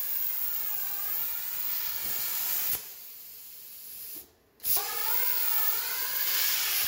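CNC plasma cutter torch hissing as its arc cuts steel, with a faint wavering whine in the hiss. It stops about three seconds in, and after a short lull it starts again with a sharp pop and hisses on through the cut.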